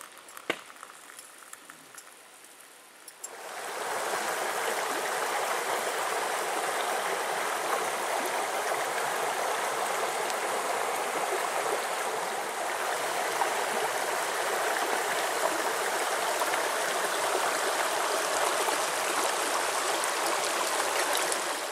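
Shallow, rocky mountain creek flowing over stones in a steady rush of water. It comes in about three seconds in, after a quieter stretch that holds a single click.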